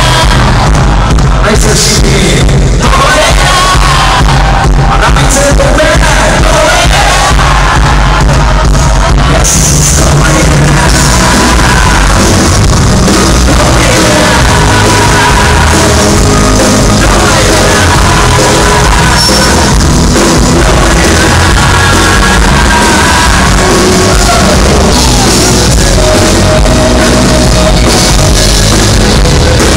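Loud live rock music from a band on stage, with a singer.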